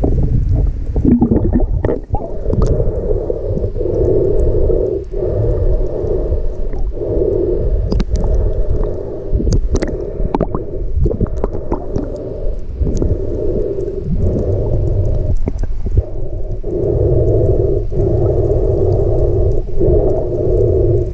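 Muffled underwater sound from a camera held below the surface: a continuous low rumble of moving water with a droning hum that breaks off briefly every few seconds, and scattered faint clicks.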